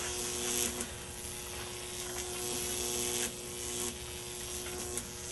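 High-voltage arc of a Jacob's ladder with heart-shaped wire electrodes, buzzing steadily with a hiss.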